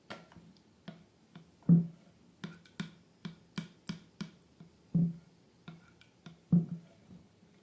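Slime being squeezed and handled, giving irregular sticky clicks and pops with three louder squelches.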